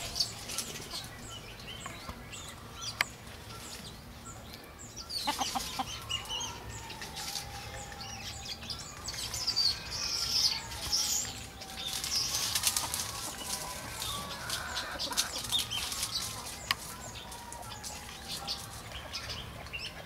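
Chickens clucking now and then while small wild birds chirp busily around them, with bursts of rustling, loudest in the second half.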